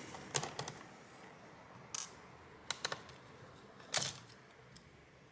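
Scattered small clicks and taps of a magnetized Phillips screwdriver and tiny screws against the laptop's internal metal and plastic parts, about five in all.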